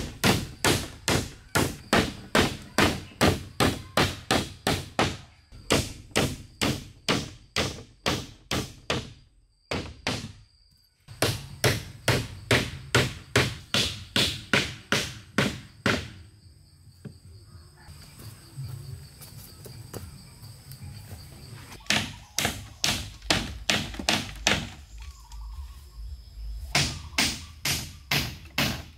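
Hammer driving nails into wooden planks: quick, evenly spaced blows about three a second, in several runs with pauses between.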